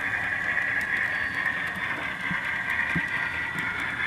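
Model freight train rolling along the layout track: a steady high whir of its motor and wheels on the rails, with a few faint clicks.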